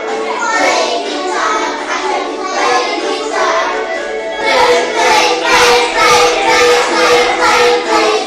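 A children's action song playing, with young children singing along; about halfway through it gets fuller and louder, with a steady beat.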